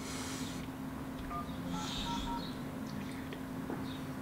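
Phone keypad touch-tones: a quick run of short beeps, about four of them from a second in, as a phone number is dialed, here the bank's fraud line. A faint steady hum runs underneath.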